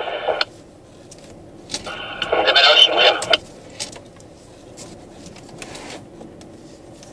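Low, steady car cabin noise while driving a cone slalom at about 20 km/h. About two seconds in, a voice comes in for about a second and a half, sounding as if heard over a radio.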